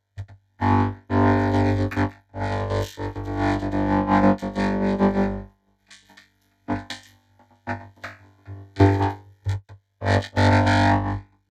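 A short voice clip heavily processed through vocoder and distortion effects, so that it comes out as synthesized, music-like tones rather than intelligible words. It runs in choppy bursts, one long stretch in the first half and shorter broken pieces after, over a steady low hum.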